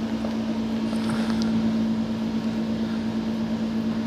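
Steady machine hum holding one constant low tone with weaker overtones: an engine or motor running.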